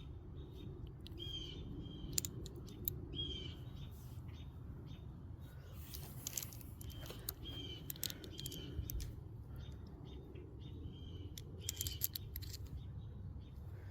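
Small birds chirping again and again in the background, with scattered light clicks of tools being handled and set down.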